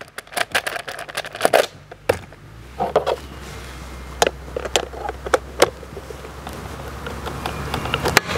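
Clicks and knocks of a Stihl MS 400 chainsaw's top cover being fitted back on and its quarter-turn fasteners twisted shut. A low steady hum comes in a couple of seconds in.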